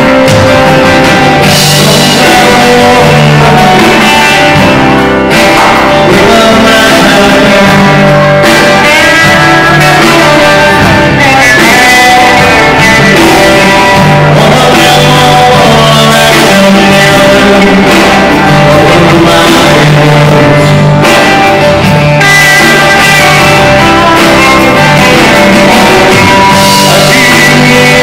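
Live rock band playing loudly: strummed acoustic-electric guitar, electric guitar, bass guitar and drum kit, with a lead voice singing.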